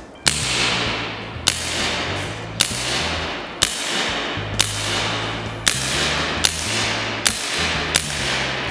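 A KJ Works Ruger .22-style airsoft gas pistol fired in slow single shots, about nine in all at roughly one per second. Each shot is a sharp crack followed by a fading echo from the large empty hall.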